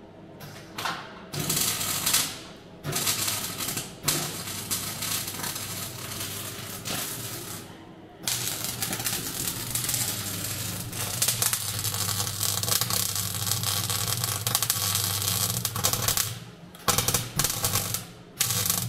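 MIG welder crackling as steel bracing is welded into a car body shell. It runs in a few short spells, then two long unbroken runs of several seconds each, then several brief tack welds near the end.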